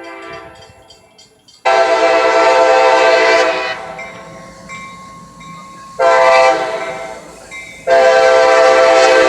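CSX locomotive air horn blowing for a grade crossing, loud and close. A faint horn at first, then a long blast, a short one, and another long blast starting near the end, part of the crossing-signal sequence.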